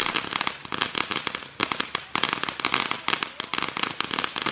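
Ground fountain firework spraying sparks with a rapid, dense, irregular crackling.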